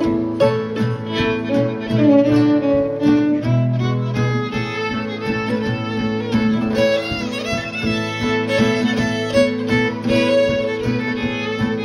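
Fiddle playing the melody of a waltz, bowed notes moving steadily, over a steady rhythmic accompaniment.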